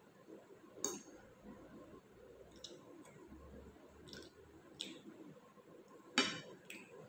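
A metal fork clinking and scraping on a plate during a meal: about six short, sharp clinks, the loudest about six seconds in. Quiet chewing sounds come in between.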